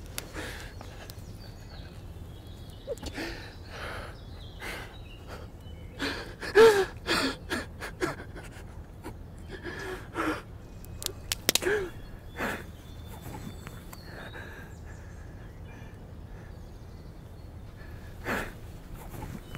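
A man sobbing: short gasping breaths and strained, broken cries, coming thickest in the middle stretch, with one more gasp near the end.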